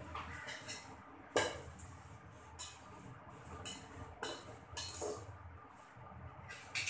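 Metal ladle stirring chopped tomatoes and onions in a metal pot, with irregular scrapes and clinks against the pot's side and rim; the sharpest clink comes about a second and a half in.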